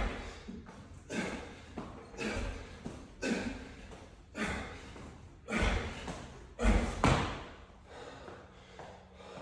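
Hard, gasping breaths from an athlete doing kipping pull-ups, about one a second, each rep with a thud from the steel pull-up rig. The loudest thuds come near the end, as he drops off the bar.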